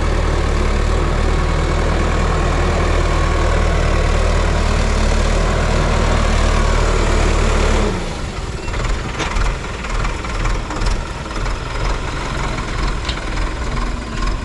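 Diesel farm tractor engine working under load as it drags a rear blade through the soil, a loud steady drone. About eight seconds in the drone drops abruptly to a quieter, rougher, uneven sound.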